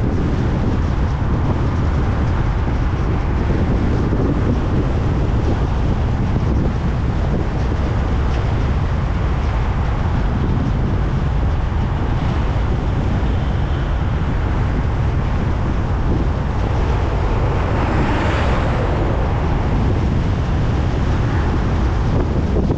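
Steady road noise from a car driving: a continuous low rumble of tyres and engine, with wind buffeting the microphone. A brief louder whoosh swells and fades about eighteen seconds in.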